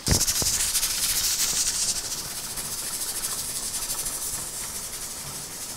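Steam hissing and sputtering from a stovetop pressure canner's lid vent while pressure is building, before the air vent pops up and seals.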